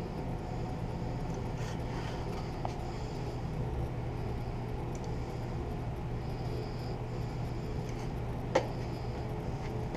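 Steady low background hum, like a fan or machine running, with one sharp tap about eight and a half seconds in.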